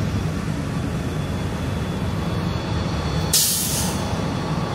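Bus engine running with a steady low rumble, and a short, sharp hiss of released air from a bus's air brakes about three seconds in.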